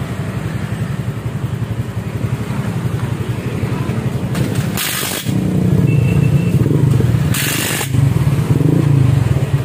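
Honda Vario scooter's single-cylinder four-stroke engine running through a newly fitted aftermarket racing muffler, idling steadily and then running louder from about five seconds in. Two short bursts of hiss cut in, a little after four seconds and again after seven.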